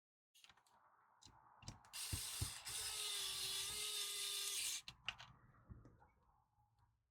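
Small electric screwdriver running for about three seconds with a steady whine, driving a screw into the speaker's housing, between clicks and knocks of handling the parts.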